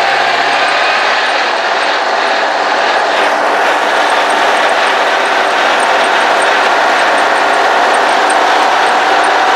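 Case 1030 tractor's six-cylinder diesel engine running steadily under load while hauling manure, heard loud from inside the cab.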